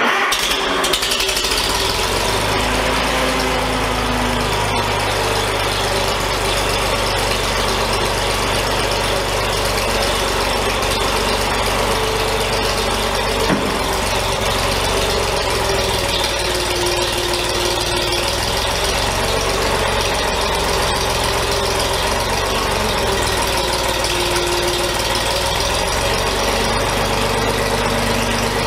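Oliver OC46 crawler tractor's engine running steadily, with one sharp knock about thirteen and a half seconds in.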